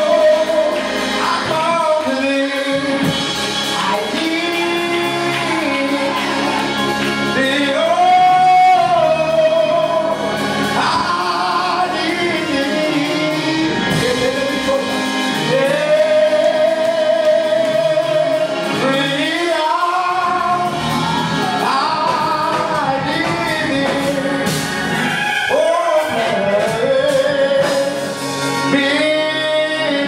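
Gospel singing: a man's voice sings long, held, swooping notes over a sustained keyboard accompaniment.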